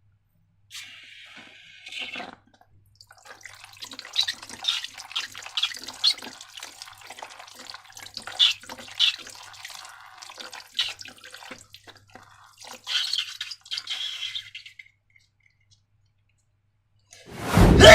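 Sticky slime squishing and crackling in irregular wet clicks as it is worked by hand, after a short hiss about a second in. A loud thud comes near the end.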